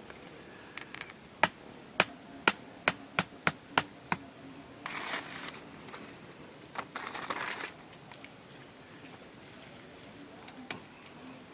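A hammer knocking a bamboo support stake in: about eight sharp strikes that come faster over some three seconds, followed by two short bursts of rustling.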